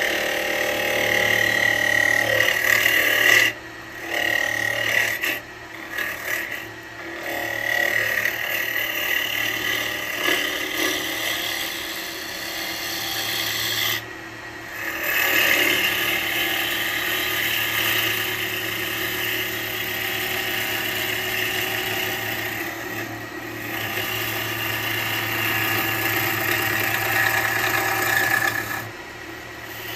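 Wood lathe spinning an alder blank while a turning tool cuts into it, throwing shavings: a steady scraping cut over the low hum of the lathe. The cut drops away briefly a few times as the tool comes off the wood.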